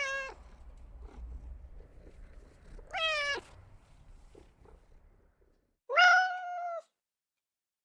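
Domestic cat meowing three times: a short call at the very start, a falling meow about three seconds in, and a longer, level meow about six seconds in.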